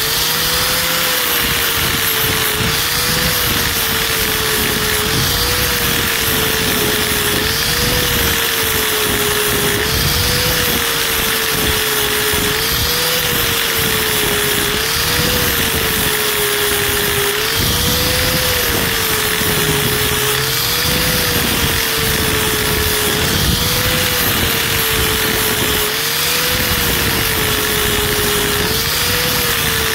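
Electric angle grinder with an 80-grit flap wheel running steadily while shaving the rubber sidewall lugs off a Super Swamper RC crawler tire with a light touch. Its motor pitch rises briefly and falls back about every two seconds.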